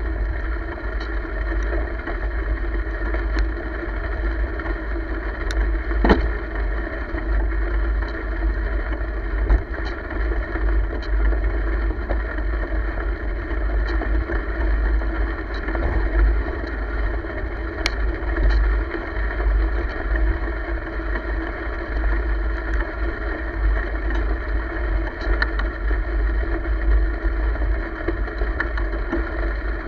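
Wind buffeting the microphone of a camera moving along a gravel trail, a heavy steady rumble over the hiss of tyres rolling on gravel, with scattered small clicks and rattles.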